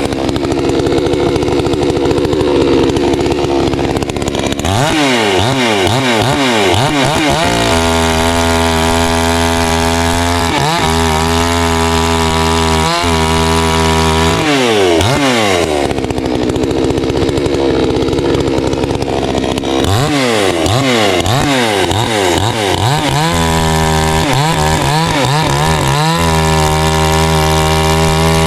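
Garwinner two-stroke gas chainsaw bucking a log, running loud near full throttle. Its pitch drops and holds lower twice, near the start and about two-thirds of the way through, as the chain works in the cut. Between those stretches it swings up and down with the throttle, then holds high and steady.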